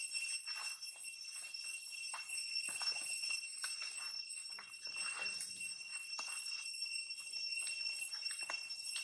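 Baby long-tailed macaque suckling at its mother's nipple, making faint, irregular wet smacking clicks. A steady high ringing tone sits over them and is the loudest sound.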